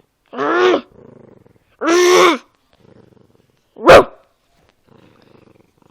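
Dog barking three times, about a second and a half apart, with the last bark short and the loudest, and low growls in between.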